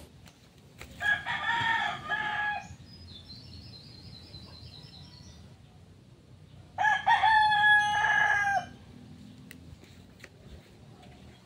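Red gamecock (fighting rooster) crowing twice, each crow about two seconds long and several seconds apart.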